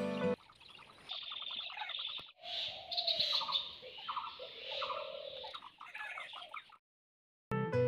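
Birds chirping and calling among trees, with short high chirps and runs of quick repeated notes. Background music stops at the start and comes back near the end after a brief gap of silence.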